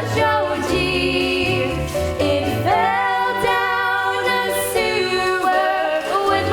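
A female voice singing a slow song over a band accompaniment, with vibrato on held notes.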